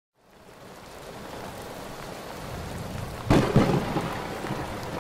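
Steady rain fading in, then a sharp thunderclap a little over three seconds in, its rumble trailing off.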